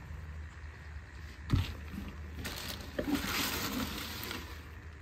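A single dull knock, then clear plastic wrapping rustling and crinkling for about two seconds as it is pulled open.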